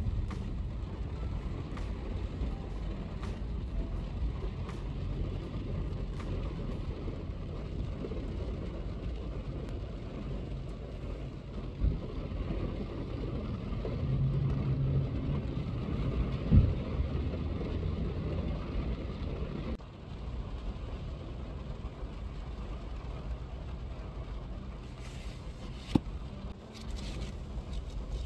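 Car idling, heard from inside the cabin as a steady low rumble, with a few brief knocks.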